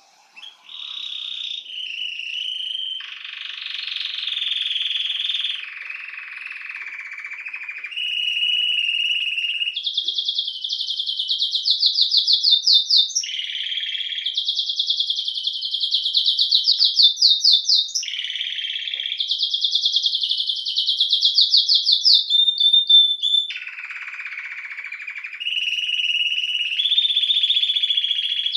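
Domestic canary (Belgian canary, Serinus canaria) singing a long, unbroken song that starts about half a second in. The phrases change every one to three seconds, alternating lower buzzy rolls with fast, bright trills.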